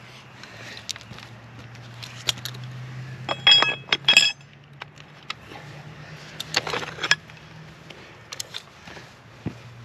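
Steel jackhammer chisel bits being handled, clinking and ringing against metal, with the loudest run of strikes about three and a half to four seconds in and another around six and a half to seven seconds. A low steady hum runs underneath and fades out near the end.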